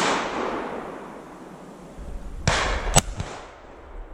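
Shotgun shots at flying pheasants. The report of a shot fired just before dies away over about a second and a half. Then two more shots crack out about half a second apart, around two and a half and three seconds in.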